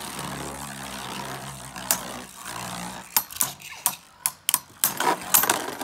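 Two Beyblade Burst Turbo spinning tops whirring on the plastic stadium floor. About three seconds in, a quick run of sharp plastic clacks begins as they collide.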